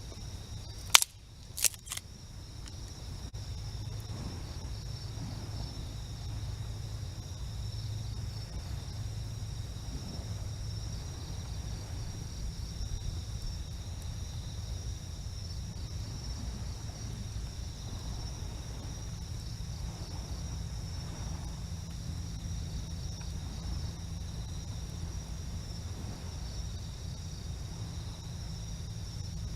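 Steady chorus of night insects trilling over a low, constant rumble of surf. About a second in come three sharp clicks, the first the loudest.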